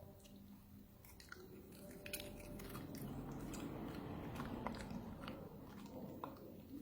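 Crunchy snack being bitten and chewed, a run of crisp crunches and clicks that is busiest in the middle.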